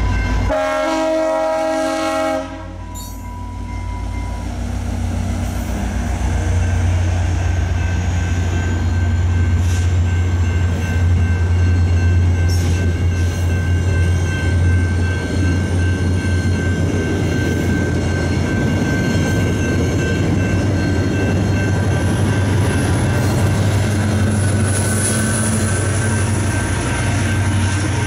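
VIA Rail F40PH-2 diesel locomotive sounding a short multi-note horn blast that cuts off about two and a half seconds in, then the locomotive and passenger cars rumble through the level crossing with a few clicks of wheels over the rails. The crossing-signal bell rings steadily the whole time.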